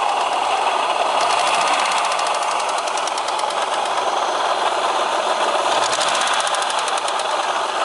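Opel X30XE 3.0 V6 engine running with a fast metallic knock ticking along with the engine; the knock is the fault being recorded.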